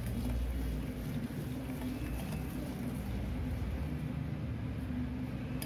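A steady low hum and rumble with a faint even hiss. No clinks from the whisk stand out.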